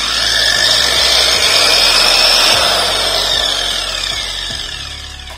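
A 5-inch, 1100-watt angle grinder, a copy of a DeWalt, running free with no load, its disc spinning clear of the guard with a loud, high motor whine. From about three seconds in the whine falls in pitch and gets quieter as the motor slows.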